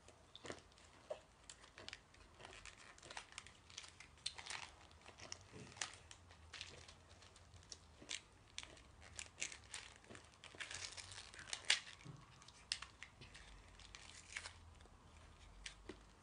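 Candy wrapper crinkling and rustling as it is handled, in scattered faint crackles and clicks, with a denser run of crinkling about ten to twelve seconds in.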